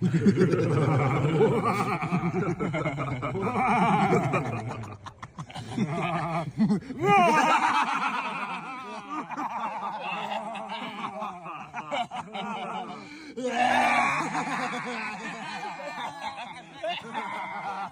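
People's voices laughing and vocalizing without clear words. A much higher, wavering voice comes in about seven seconds in and again near fourteen seconds.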